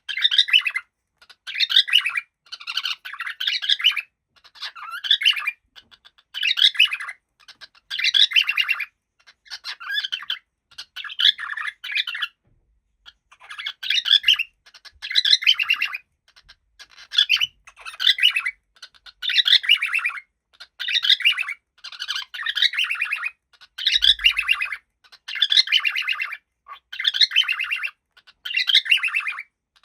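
Cockatiel chattering and warbling in a steady run of short, high-pitched phrases, about one a second, with a brief pause about halfway.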